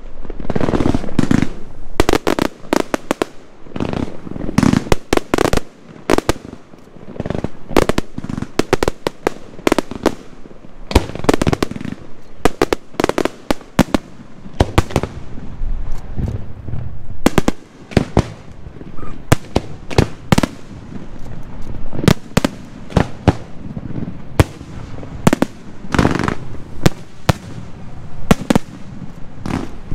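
Aerial firework shells bursting in a dense, irregular run of sharp bangs, with lower booming between them, during a fireworks show.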